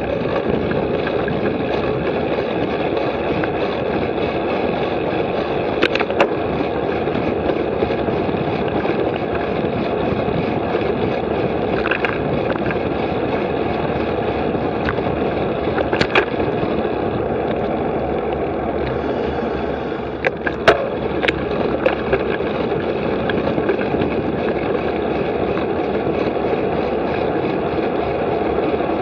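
Wind rushing over the microphone of a camera on a moving bicycle, with steady tyre and road noise at cycling speed. A few sharp clicks from the bike are scattered through, with a small cluster about three-quarters of the way in.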